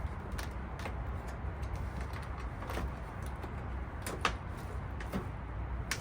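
Scattered clicks and knocks of hand tools and metal parts as bolts are worked out of a damaged car's front end, over a steady low hum.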